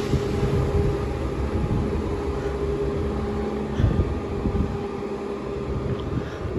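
Two coupled Chiltern Railways Class 168 diesel multiple units pulling away under power. Their diesel engines give a noisy, steady drone that slowly fades as the train moves off.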